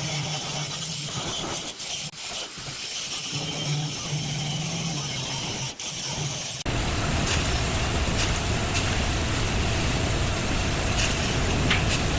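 Steady mechanical rumble like a running vehicle, with a low hum that comes and goes. About halfway through it cuts off abruptly to a louder, even rushing noise.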